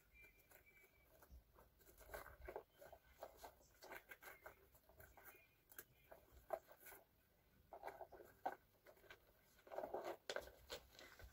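Faint scattered clicks and rustles of a small leather shoulder bag and its metal chain strap being handled.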